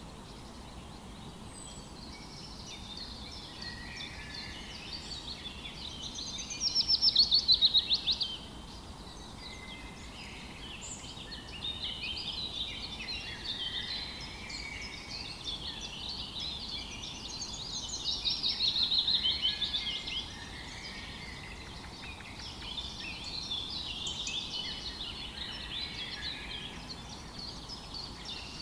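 Several songbirds singing in chorus, with a loud rapid trill twice: about a quarter of the way in and again about two-thirds through. A faint steady rush of a flowing river runs beneath.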